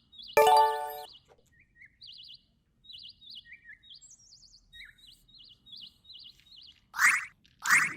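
Repeated short, warbling bird chirps, with a loud brief pitched tone about half a second in and two quick swooshes near the end.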